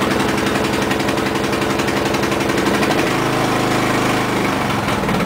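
Briggs & Stratton 15.5 hp engine of a lawn tractor running steadily just after a cold start on choke, its note shifting about three seconds in.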